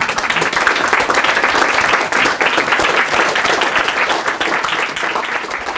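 Small audience applauding: a dense, even patter of many hands clapping that eases slightly near the end.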